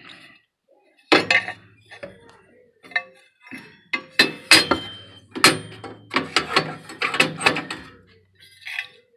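Gas furnace burner tubes clinking and clanking against each other as they are handled and fitted back into place: a run of sharp metallic knocks with brief ringing, busiest in the second half.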